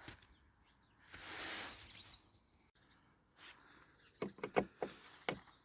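A brief rustle, a single short rising bird chirp, then a quick run of light clicks and taps, typical of parts and tools being handled.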